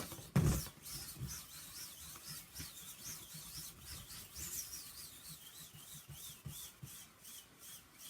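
A dime spinning around inside an inflated rubber balloon that is swirled by hand, making a faint, whispery rub with a thin tone that wavers up and down over and over. The sound comes from the tiny ridges on the dime's edge rubbing against the rubber. There is a thump just after the start.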